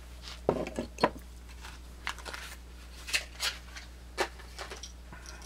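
Swiss Army knives being handled: scattered sharp clicks and light metal clinks, the loudest about half a second and a second in, with more around three and four seconds in.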